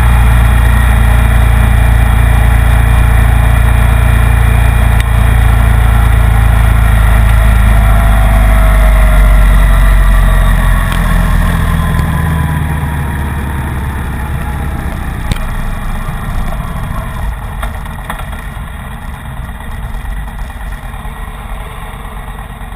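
Motorcycle riding at road speed, its engine under a heavy rush of wind on the microphone. About ten seconds in, the engine note falls away and the sound gets quieter as the bike slows, rolling at low revs for the rest.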